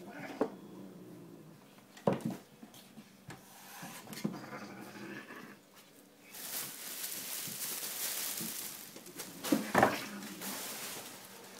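A cat and a person's hand scuffling on the floor under a table: a few sharp knocks, and a rustling scuffle of several seconds in the second half.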